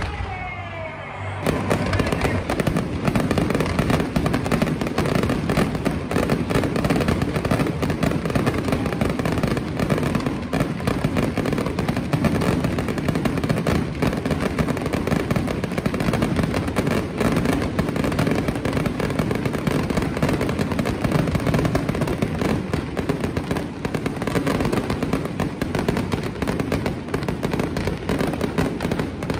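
Fireworks display: rapid, continuous bangs and crackles that start abruptly about a second and a half in and keep up without a break.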